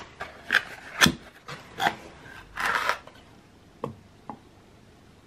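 A terracotta cosmetic pot being lifted out of its cardboard box and handled: a few sharp knocks, the loudest about a second in, a short scraping rub, then two light taps.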